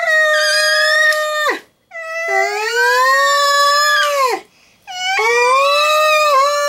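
A man's high falsetto howling: three long held notes, each sliding down in pitch as it ends.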